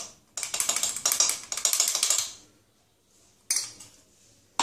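Spoon scraping and clinking against a jar while dry tomato powder is scooped out, quick scratchy strokes for about two seconds, then one sharp click about three and a half seconds in.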